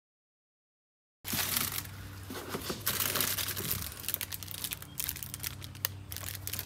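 Plastic packaging crinkling and rustling as the items are handled: clear plastic bags and pink bubble wrap, with many small sharp crackles. It starts after about a second of dead silence.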